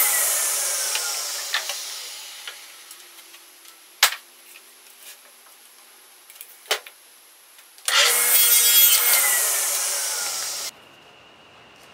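Power saw cutting plywood, its motor winding down with a falling pitch over the first few seconds. A few sharp knocks follow. Near eight seconds the saw is loud again for a short cut, winds down, and cuts off abruptly.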